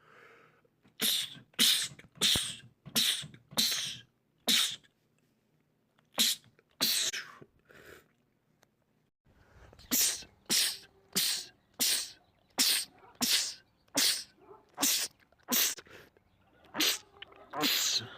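A man sneezing in rapid-fire fits. There are about six quick sneezes, then three more, and after a short pause a run of about eleven, each well under a second apart.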